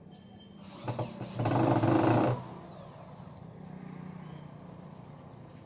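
Electric drill driving a screw into a speaker driver's mounting: a short blip about a second in, then about a second of the motor running under load, ending with a falling whine as it spins down.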